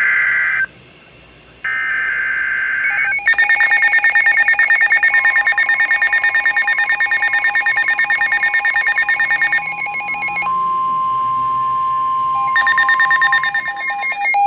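NOAA weather radio warning broadcast: two short, buzzy digital SAME header bursts, after which several weather alert radios go off with fast pulsing electronic beeps. The steady 1050 Hz warning alarm tone comes in about five seconds in, holds for about nine seconds under the beeping, and the beeping drops out briefly partway through. This is the alert sequence that precedes a warning message.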